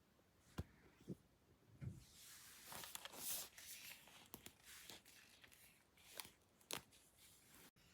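Faint handling noises: a few sharp clicks and soft rustling, with no hair dryer running.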